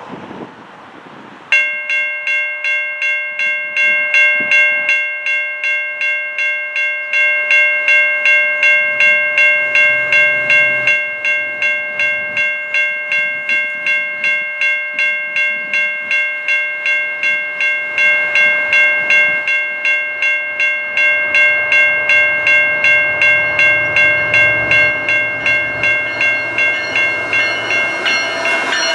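Railway crossing bell that starts abruptly about a second and a half in and rings on in quick, even strokes at a steady level. Underneath it, the low rumble of the approaching GE ES44AC-led diesel locomotives grows in the last third as they come close.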